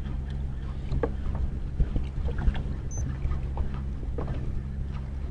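Small mini fishing boat drifting at sea: a steady low hum under scattered light knocks and water slaps against the hull, with a brief high beep about three seconds in.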